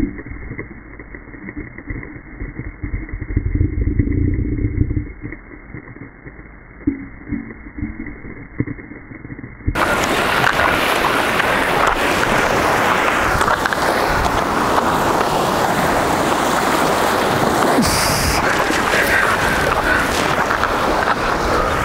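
Water churning against rocks, heard muffled and dull through an underwater fishing camera being dragged through the surf. About ten seconds in it changes to loud, steady surf washing over jetty rocks, with wind on the microphone.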